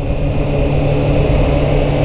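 Kawasaki Ninja 636's inline-four engine running at a steady low road speed, with wind rushing over the microphone.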